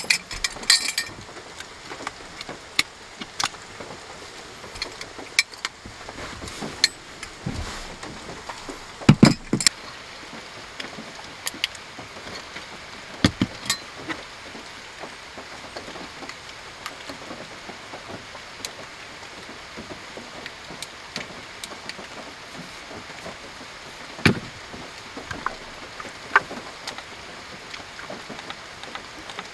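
Steady rain falling on the car's roof, with scattered clicks, taps and knocks of small camping gear being handled on a wooden table. A heavier thump comes about nine seconds in.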